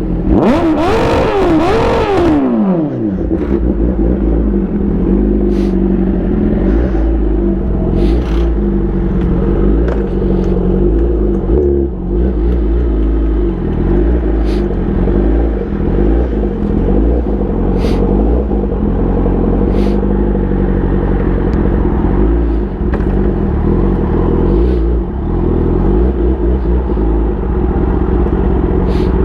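Kawasaki ZX-10R inline-four engine through an SC-Project aftermarket exhaust, revving up and dropping back within the first few seconds, then running on in a steady, slightly wavering note.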